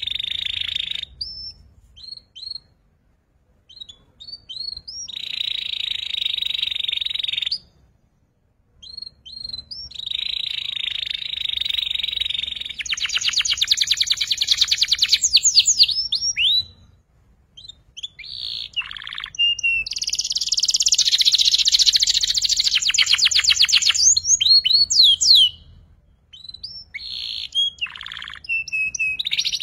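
Young canary practising its song: long, rapid rolling trills broken by short rising chirps, with brief pauses between phrases. This is the chattering 'ngeriwik' stage of a juvenile canary learning to sing.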